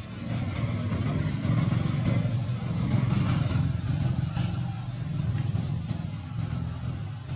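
A motor vehicle's engine running past, a low hum that grows louder a second or two in and then slowly fades.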